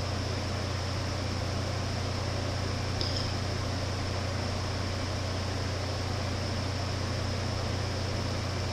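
Steady low hum with an even hiss behind it, like a fan or air conditioner running in a small room, and a faint tick about three seconds in.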